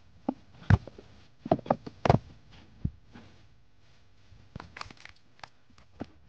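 Irregular knocks, thumps and scuffs of a person clambering across the timber ceiling joists of a roof space, the two strongest thumps about a second and two seconds in.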